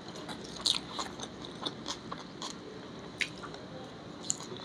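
A person chewing a mouthful of rice close to the microphone: irregular soft wet smacks and clicks of the mouth, about a dozen in a few seconds.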